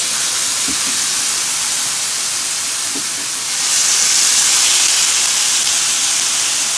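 Seasoned chicken and peppers sizzling loudly in hot oil in a large cast-iron skillet; the sizzle grows louder about three and a half seconds in.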